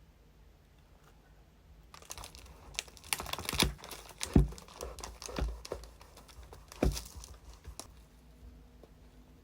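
Packaging crinkling and rustling as a pastry is unwrapped, starting about two seconds in, with a few sharp knocks of handling among the crackles.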